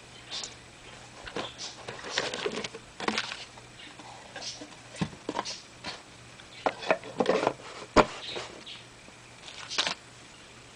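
Packaging being handled: irregular clicks, taps and rustles, with one sharp click about eight seconds in.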